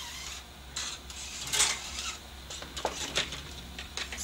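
MIG welding wire being pulled by hand out through the torch's gun-cable liner: a scratchy sliding hiss in several short strokes, with a few sharp clicks and knocks of the torch in the second half.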